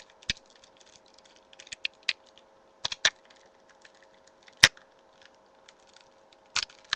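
Plastic action figure clicking and knocking as it is handled and its leg hinge joints are bent: scattered sharp clicks, the loudest a little past the middle.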